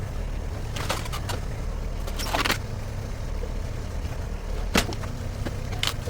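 Shantui STE35SR mini excavator's diesel engine running steadily under work, with sharp cracks and knocks from the demolition: a few about a second in, a longer crack around two and a half seconds, and more near the end.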